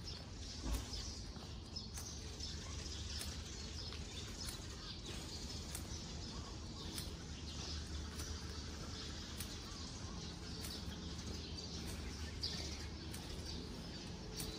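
Small birds chirping over a steady low hum of distant city traffic, with light footsteps ticking about once a second and a single low thump about a second in.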